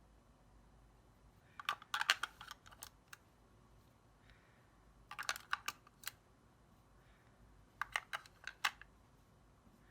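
Three short clusters of light clicks and taps, a few seconds apart.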